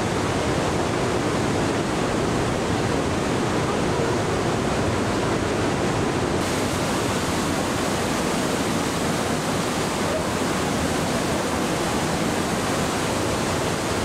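Steady rushing of Trümmelbach Falls, glacier meltwater plunging and churning through the rock gorge inside the mountain, a little brighter after about six seconds.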